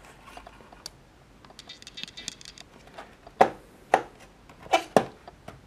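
A small cardboard box handled on a wooden desk: a short rustling scrape of the box in the hands, then four sharp knocks and taps of the box against the desk as it is turned over.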